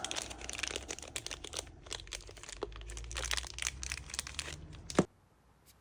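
Hands handling small pistol parts: a crinkling rustle with many small clicks and taps, ending in a sharper click about five seconds in, after which the sound cuts off suddenly.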